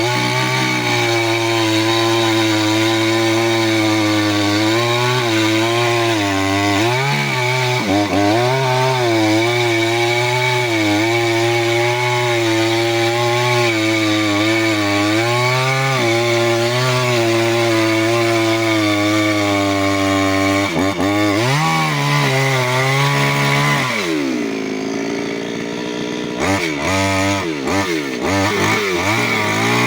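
New West 598X two-stroke chainsaw running at full throttle while cutting wood, its engine pitch wavering as the chain bogs under load. About 24 seconds in it drops off the throttle, gets blipped up and down a few times, then revs up again.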